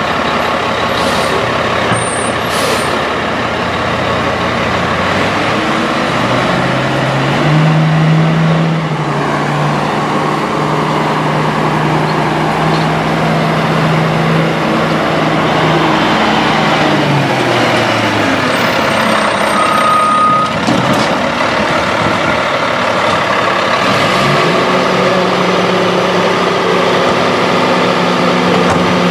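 CCC E-Z Pack garbage truck's diesel engine revving up, holding high for about ten seconds, then dropping back, with a short high squeal about twenty seconds in. The engine settles at a higher steady pitch again near the end.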